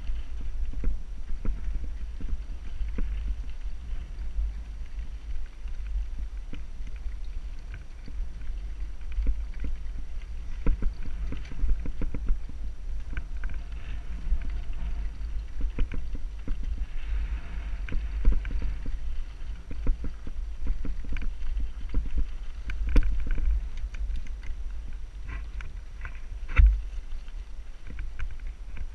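Wind rumbling on a helmet-mounted camera's microphone while riding a mountain bike over a rocky dirt trail, with tyres crunching on gravel and frequent clicks and rattles from the bike over bumps. Two harder knocks come in the last third.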